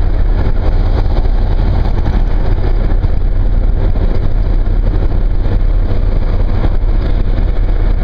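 Steady, loud low rumble of a car cruising at speed, engine and tyre noise heard from inside the cabin.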